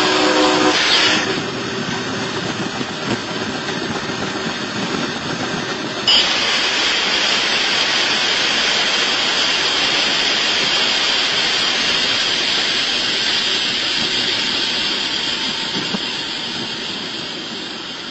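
Train horn sounding briefly at the start, then steady train noise; about six seconds in a sudden bang, followed by a steady hiss that slowly fades.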